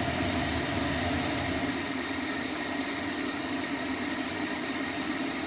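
Pot of shrimp sinigang at a rolling boil, under a steady whirring hum like a kitchen fan.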